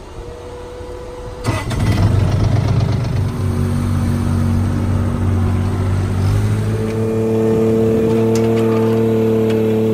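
Bobcat 463 mini skid-steer's engine starting and running: a steady tone for the first second and a half, then the engine catches and runs. About six and a half seconds in it is throttled up to a higher, steady speed.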